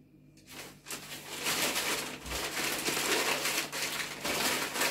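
Dried thyme being handled and crumbled by hand, a dry crackling rustle that starts about half a second in and keeps on, rising and falling.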